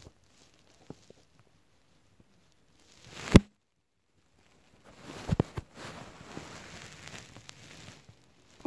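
Handling noise from a phone camera being picked up and moved: faint clicks, one sharp knock just over three seconds in, then a few seconds of rustling with a couple of thumps.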